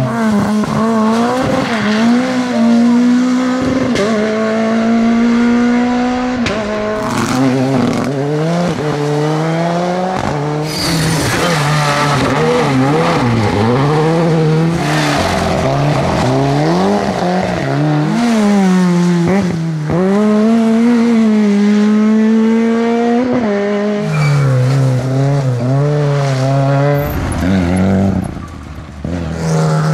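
Rally car engine revving hard, its pitch repeatedly climbing and dropping with throttle and gear changes, with a few stretches held at steady high revs.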